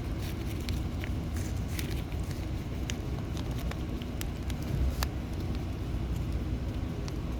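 Steady low background rumble with scattered small clicks and taps throughout.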